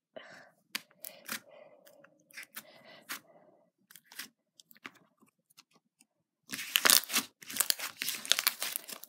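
Glossy glitter slime being pressed and kneaded by hand, giving scattered sticky clicks and pops. About two-thirds of the way in, as the slime is lifted and pulled off the table, the pops turn into a dense, steady crackle.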